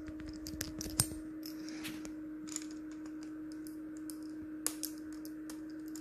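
A precision screwdriver's Phillips bit tried on a tiny M.2 retaining screw without catching it: a few small metallic clicks and taps, the loudest about a second in, over a steady hum.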